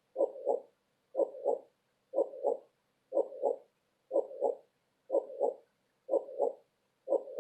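Heartbeat sound: a steady lub-dub double beat, two soft thumps close together, repeating about once a second.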